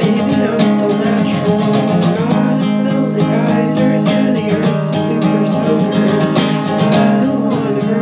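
Music: an instrumental passage of a song, carried by a strummed guitar.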